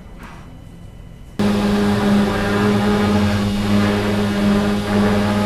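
Large gantry CNC router running: a loud, steady machine hum with a strong low tone over a hiss. It cuts in abruptly about a second and a half in.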